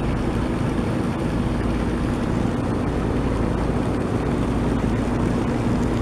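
A steady low engine drone with a constant hum, unchanging throughout.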